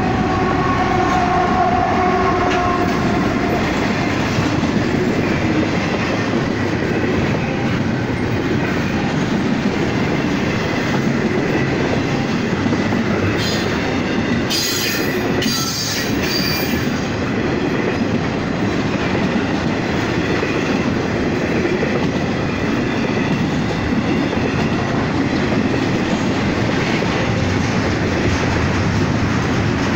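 Double-stack container freight train rolling steadily past, a continuous rumble and clatter of railcar wheels on the rails. A mid-train diesel locomotive passes at the start, adding a tone over the first few seconds, and a short high-pitched squeal comes about halfway through.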